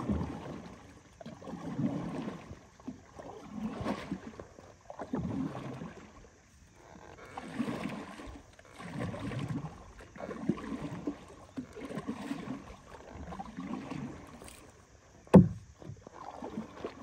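A small boat being rowed across a lake: a swishing splash of the blades through the water with each stroke, about every one and a half to two seconds. A single sharp knock sounds about fifteen seconds in.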